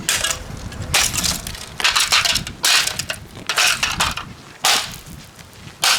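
An Andis hair dryer and its small motor being smashed: about eight hard, sharp blows, roughly one a second, breaking up its plastic and metal parts.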